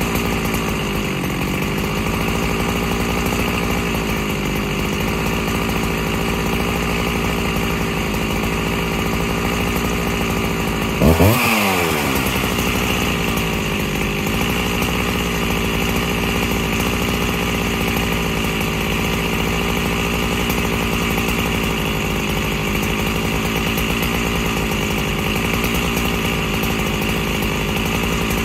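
Freshly rebuilt Husqvarna 365 SP two-stroke chainsaw idling steadily on the ground, its pitch settling down in the first second or two. About eleven seconds in it revs up sharply once and drops straight back to idle.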